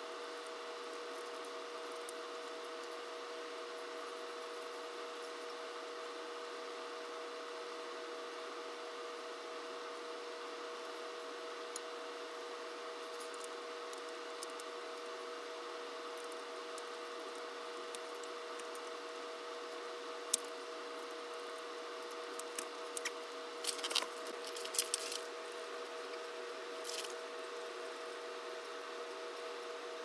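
Small clicks and scrapes as hands work on the fittings at the bottom of a Hunter Original ceiling fan, scattered and clustered mostly in the second half, over a steady two-tone hum.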